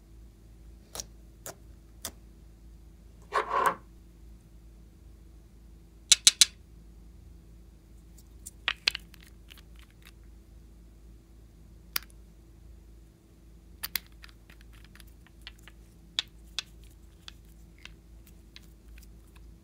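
Small clicks and taps of nail polish bottles being handled: glass bottles and their plastic caps knocking, and caps being twisted open. There is a brief rattle about three and a half seconds in, a few sharp clicks around six seconds in, and a run of quick small clicks near the end, over a faint steady hum.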